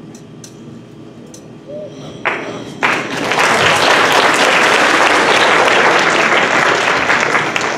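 Audience applauding, starting about three seconds in and staying loud and steady.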